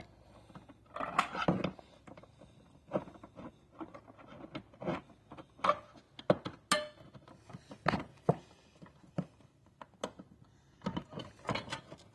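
Needle-nose pliers and a headlight retaining spring clicking and knocking against the headlight housing as the spring is worked onto its clip. The result is a string of irregular small clicks and taps.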